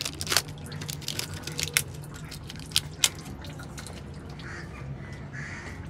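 Light clicks and taps from handling a new engine oil filter while it is fitted during an oil change, with two sharper taps about three seconds in, over a steady low hum.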